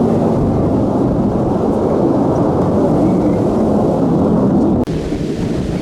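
Deep, steady jet roar of an F-35A Lightning II's single Pratt & Whitney F135 engine. About five seconds in it cuts off abruptly and gives way to a quieter rumble.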